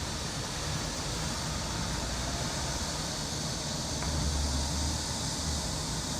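Summer cicadas in a dense chorus, heard as a steady high hiss, over a low city traffic rumble that swells about four seconds in.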